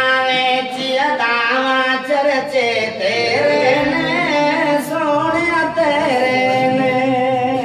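A man singing a Punjabi naat into a microphone in Saraiki style, unaccompanied, with long held notes that waver and bend in pitch.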